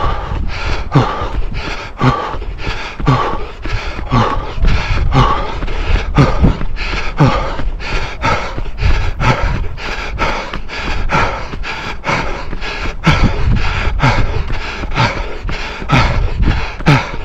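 A runner's footfalls on a tarmac path, nearly three strides a second, with heavy breathing: about once a second a breath out slides down in pitch.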